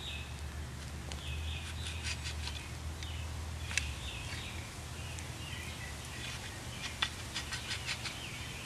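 A hand hoe chopping and scraping into loose garden soil, several sharp strikes, the loudest about four and seven seconds in, with a quicker run of them near the end. Birds chirp on and off in the background.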